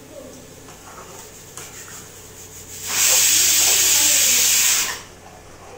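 A loud, steady hiss that starts suddenly about three seconds in, lasts about two seconds and cuts off. Before and after it, a ladle quietly scrapes as it stirs thick curry in a metal kadai.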